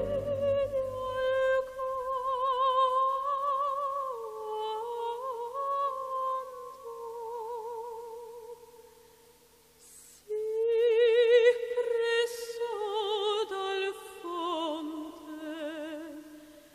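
Slow background music: a high, held melody line with a strong vibrato, moving in long descending phrases. It fades almost to silence about nine seconds in, then comes back louder.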